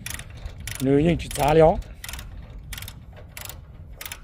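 Ratchet load binder clicking as its handle is worked back and forth, tightening a transport chain, with a sharp click about every two-thirds of a second.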